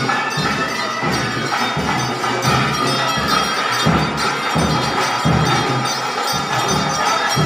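Live ritual procession music: drum strokes with bells jingling over them and a held high note running through.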